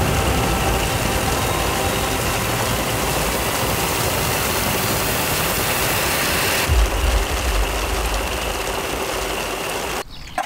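Heavy rain falling steadily as a loud, even rushing hiss, with a low rumble about seven seconds in.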